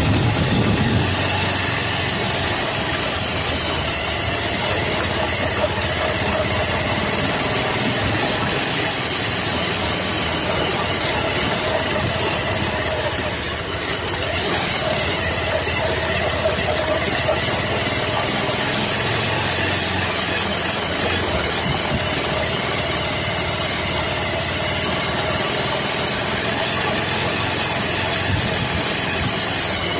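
Off-road vehicle's engine running steadily as it drives along a bumpy dirt track, heard from on board.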